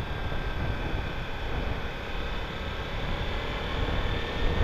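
Kawasaki Ninja 300 motorcycle underway: steady wind rush on the rider's microphone with the parallel-twin engine running at a steady pace underneath.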